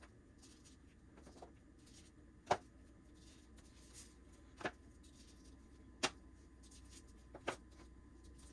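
Egg rolls being set one by one into a baking pan: short light taps and clicks, about one every second and a half, over a faint low hum.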